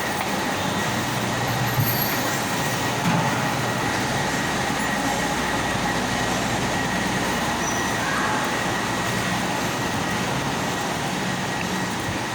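Steady mechanical running noise with a faint constant high whine, and a couple of light knocks a few seconds in.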